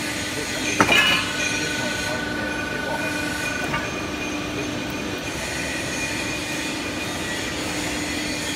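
W28K-89 pipe bending machine at work: a steady hum throughout, a sharp metallic clank about a second in, then a high steady squeal for about two and a half seconds as the die turns and bends the tube.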